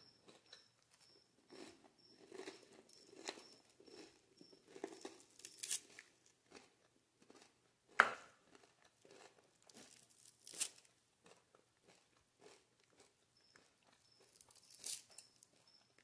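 Hard, over-fried kibbeh crust crackling and crunching as fingers break it apart: faint crumbly crackles with a few sharper cracks, the loudest about eight seconds in.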